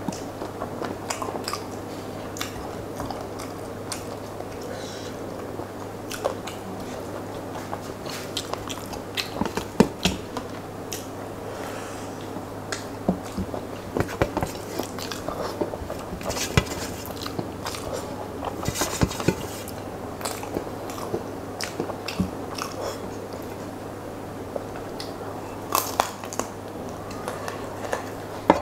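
Close-miked eating by hand: chewing, lip smacks and wet clicks as fingers mix rice with curry and pick meat off a chicken leg on a steel plate, over a steady low hum.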